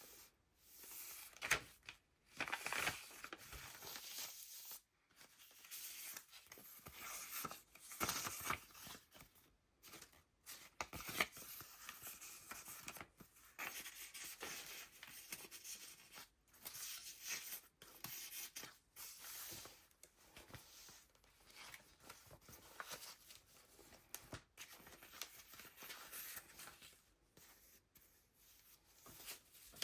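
Pages of a handmade paper journal being turned and handled: layered, decorated paper rustling and crinkling in irregular bursts, with sharp crackles as sheets are flipped.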